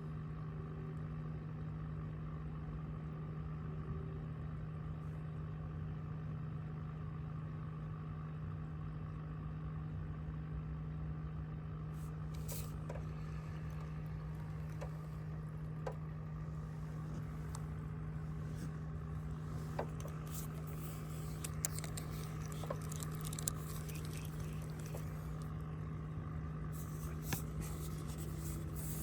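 A motor running at a steady, unchanging speed with an even hum. Scattered small clicks and ticks come in over it in the second half.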